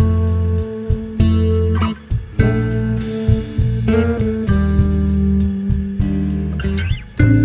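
Background music: a guitar-led track with a bass line, notes changing every second or so.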